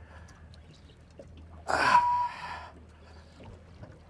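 A single sharp, breathy gasp from a person, about halfway through, over a faint low hum.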